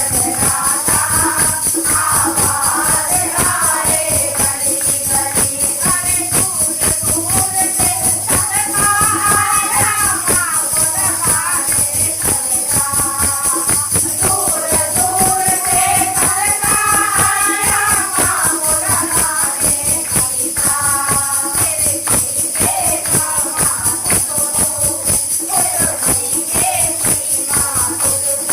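A Hindu devotional bhajan sung as kirtan, with the melody carried by singing over a steady, fast beat of jingling hand percussion.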